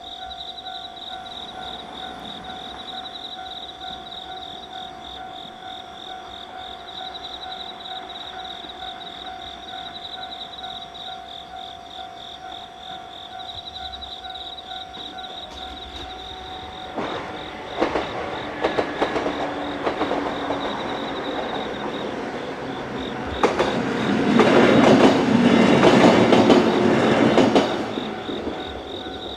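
A level-crossing warning bell rings steadily while a diesel train on the Bantan Line approaches the crossing. The train passes over it with wheels clattering, loudest a few seconds before the end, then fades.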